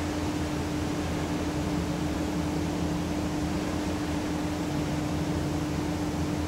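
Steady hiss with a constant low hum running underneath, unchanging throughout.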